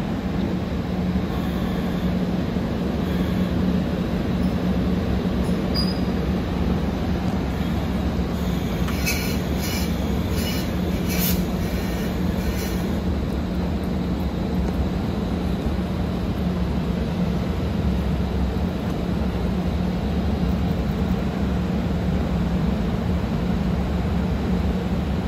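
JNR EF64 electric locomotive No. 1032 hauling an E127 series electric train, giving a steady low hum over a rumble. About nine seconds in there is a short run of faint high-pitched squeals and clicks from the wheels, lasting a few seconds.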